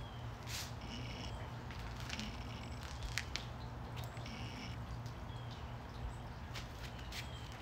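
Backyard ambience: a steady low hum under short, high chirping calls that recur every second or two, with a few faint clicks.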